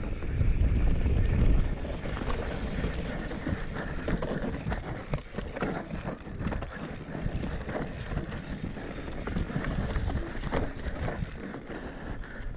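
Mountain bike riding fast down dirt singletrack: wind buffeting the microphone over the tyres rolling on dirt, with frequent rattles and knocks from the bike over rough ground. The wind rumble is heaviest in the first second and a half.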